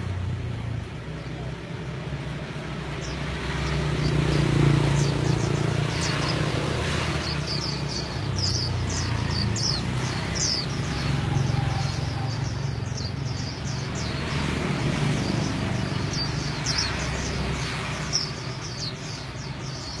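Small birds chirping, many short falling chirps in quick succession starting about three seconds in, over a steady low engine hum.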